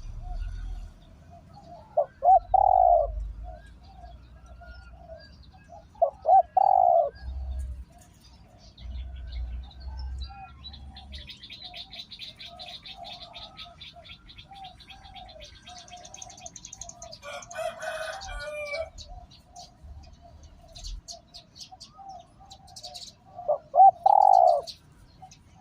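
Spotted dove cooing: three loud coo phrases with softer, continuous cooing between them. Small birds chirp rapidly in the middle, and there is a short rustling burst near the 18-second mark.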